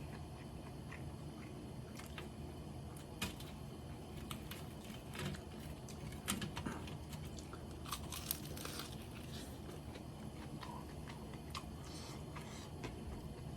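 Close-up eating of crispy Japanese fried chicken (karaage): bites and chewing with scattered crunches, busiest around the middle, over a steady low hum.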